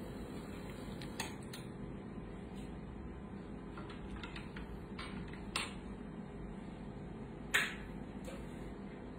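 Steady low room hum with four short, sharp clicks scattered through it, the loudest about three-quarters of the way in.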